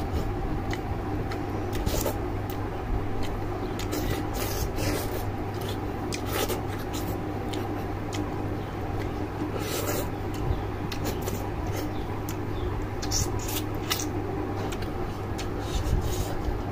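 Close-up eating sounds of boiled chicken being chewed and pulled apart by hand: many short wet smacks and clicks from the mouth and fingers, over a steady low hum.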